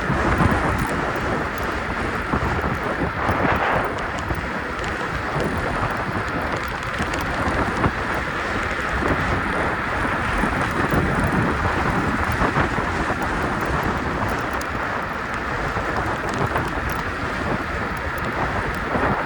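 Steady wind noise buffeting the microphone, with road rumble from a KuKirin G2 electric scooter being ridden.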